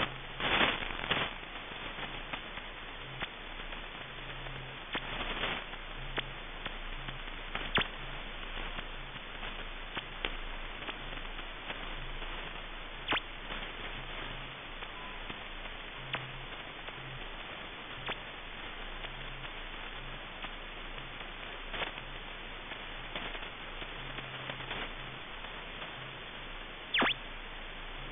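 Shortwave SDR receiver audio tuned to 5000 kHz: a steady hiss of band noise with sharp static crackles every few seconds, the loudest near the start and near the end, and a faint low buzz that keeps switching on and off.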